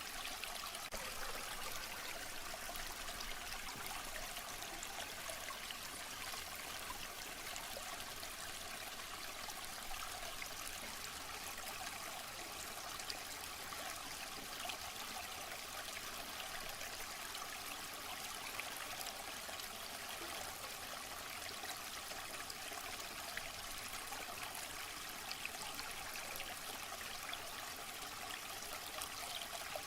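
Waterfall: water falling and splashing in a steady, unbroken hiss with little deep rumble.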